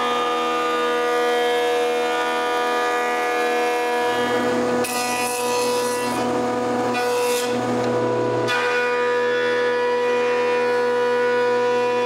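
Jointer running with a steady high whine while a solid birch board is fed over its cutterhead. The rougher sound of the knives cutting the wood joins in a few times in the middle.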